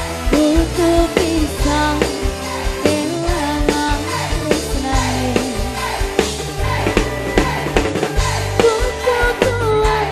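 A woman singing a campursari song into a microphone over a live band, amplified through a sound system, with drums keeping a steady beat under deep bass notes.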